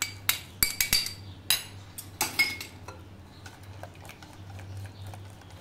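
Metal wire whisk against a glass mixing bowl: several sharp clinks in the first couple of seconds, then quieter, rapid ticking as the whisk beats a thin batter.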